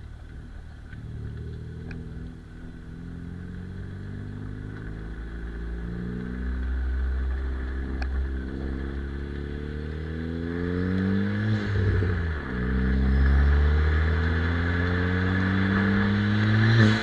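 Tuned Ford Fiesta ST engine and exhaust accelerating hard, the revs climbing steadily through a gear. The revs drop briefly for a gear change about twelve seconds in, then climb again.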